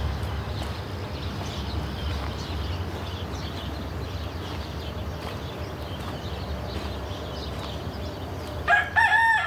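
A low steady rumble, then near the end a loud call from a peacock: a held, ringing note that breaks off briefly and starts again.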